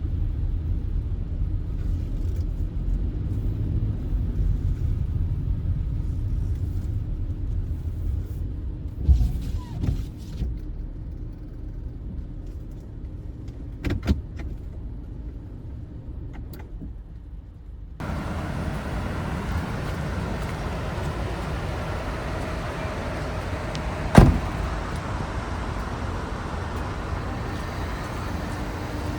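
Nissan Serena minivan on the move, heard from inside: a steady low road and engine rumble with a few small clicks and knocks. About two-thirds of the way in it changes abruptly to a brighter, hissier road noise. A sharp knock, the loudest sound, comes about twenty-four seconds in.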